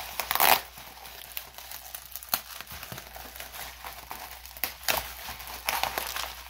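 Plastic bubble wrap crinkling as it is handled, in irregular crackles, with the loudest rustle about half a second in.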